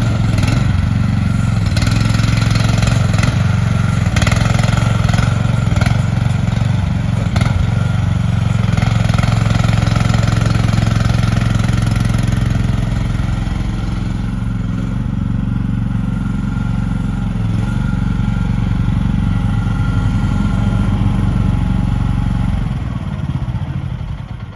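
Engine of a Lanty LAT-13S mini excavator running steadily, with repeated clanks in the first several seconds. Near the end the engine winds down and stops.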